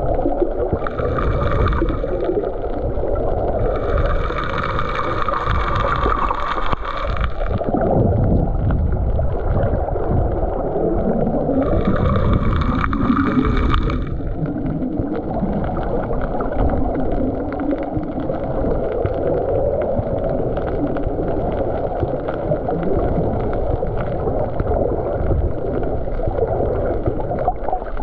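Muffled water noise picked up by a camera underwater, a steady low rumble. Three bursts of bubbling hiss break in, briefly about a second in, for about three seconds from four seconds in, and again from about twelve to fourteen seconds, as air bubbles stream past the camera.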